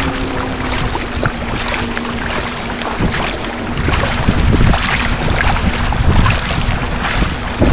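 Choppy seawater sloshing and splashing around a camera at the water's surface, with the splashes of swimmers' front-crawl arm strokes and wind on the microphone.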